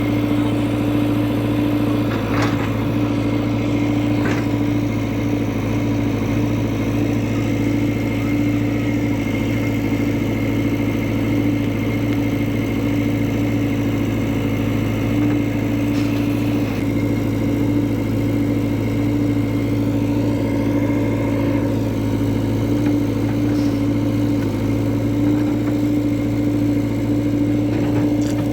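Heavy diesel engine running steadily at a constant speed, the low hum of a backhoe loader or tractor at work.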